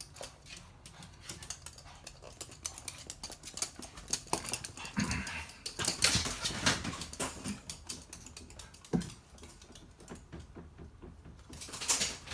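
Toy poodle's claws clicking and scrabbling on a hard surface as it struggles to free itself from an obstacle it is stuck in, with a few short dog vocal sounds about halfway through.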